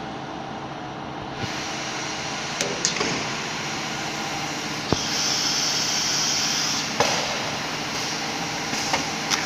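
Automatic tool-change CNC wood-panel router running with a steady mechanical hum, with several sharp clicks and clunks. A high-pitched hiss comes in about five seconds in and stops about two seconds later.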